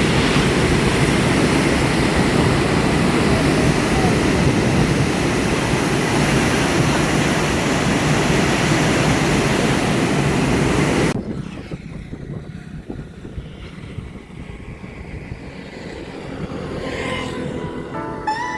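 Road and wind noise from a moving vehicle, a loud steady rush that cuts off abruptly about eleven seconds in, leaving a much quieter background; music begins right at the end.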